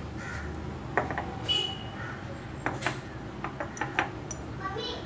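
A spoon clinking against metal kitchenware as spice powder is spooned into a pressure cooker: scattered sharp clicks, one with a short ringing ping about a second and a half in and a quick run of taps near the end, over a low steady hum.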